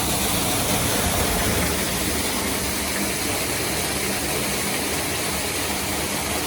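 Waterfall running, a loud, steady rushing roar with a deep rumble under a bright hiss.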